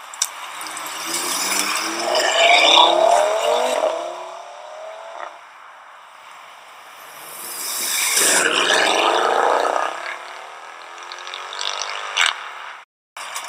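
Two supercars accelerating hard past, one after the other, each engine note climbing in pitch as it pulls through the revs; the first swells about a second in, the second about seven seconds in.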